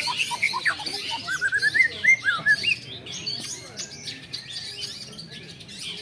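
Several long-tailed shrikes (cendet) singing at once, a dense overlapping mix of rapid chirps, short trills and sweeping whistles. Louder for the first few seconds, then a softer chatter.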